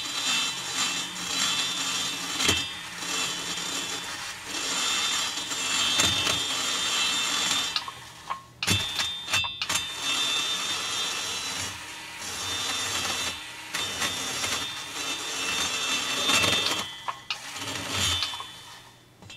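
Flex-shaft rotary tool with a burr grinding the transfer port of a chainsaw cylinder, run at about half speed so it cuts smoothly without chattering. A steady high grinding whine, with short breaks a little past the middle, winding down near the end.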